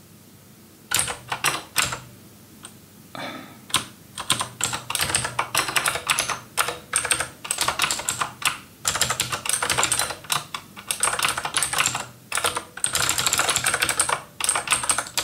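Fast typing on a computer keyboard: a dense run of key clicks starting about a second in, with short pauses between bursts.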